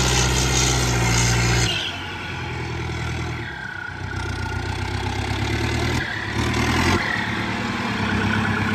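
Turbocharged Powertrac tractor's diesel engine running steadily under load while pulling a disc harrow through dry soil. The sound drops a little in level about two seconds in.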